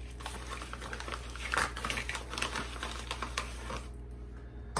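Plastic pouch of powdered sweetener crinkling and rustling, with irregular light clicks of a plastic measuring cup scooping from it; it goes quieter near the end.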